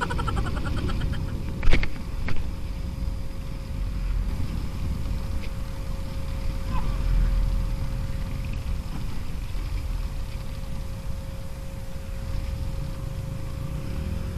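Motorcycle on the move: a steady low rumble of engine and road or wind noise, with a faint steady high hum. There are two sharp knocks about two seconds in.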